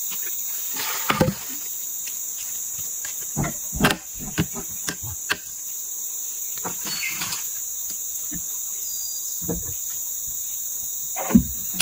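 Steady high-pitched drone of forest insects, with scattered wooden knocks and thuds as sawn ulin (ironwood) boards and offcuts are handled and dropped; the loudest knocks come about a second in and near the end.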